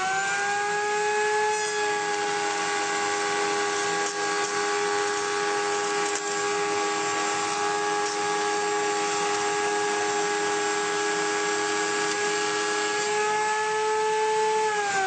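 Electric router in a benchtop router table running at full speed with a steady high whine while jointing the edge of a board in one pass. It is just finishing spinning up at the start, and near the end its pitch starts to fall as it is switched off and winds down.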